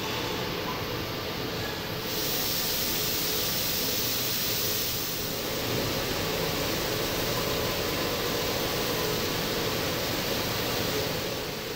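KAFO RVM-5122 gantry machining center drilling into a plate under jets of coolant: a steady hiss of coolant spray over the machine's running noise. The hiss steps up louder about two seconds in.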